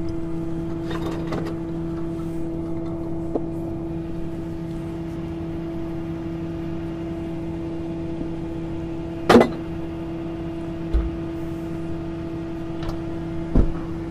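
Steady hum of the well service truck's engine running, with a sharp clank about nine seconds in and two duller knocks near the end.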